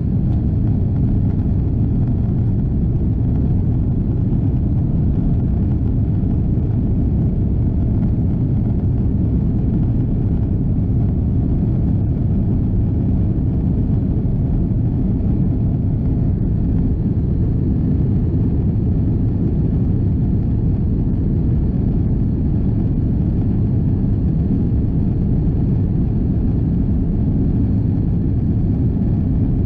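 Steady low rumble in the cabin of an Airbus A330-300 taxiing, its GE CF6 turbofans at low thrust, with no rise in pitch or level.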